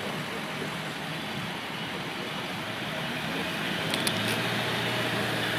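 City street traffic noise with a vehicle engine running; a low steady engine hum comes in about four seconds in, with a couple of brief clicks.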